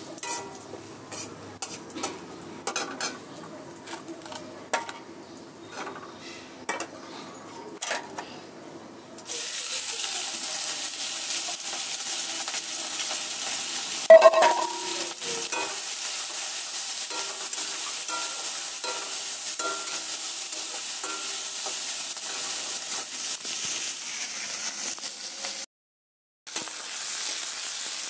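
A metal spoon stirring and clinking in a cooking pan with irregular clatter, then a steady sizzle of curry frying in hot oil that starts suddenly about a third of the way in. About halfway through there is one short, loud burst.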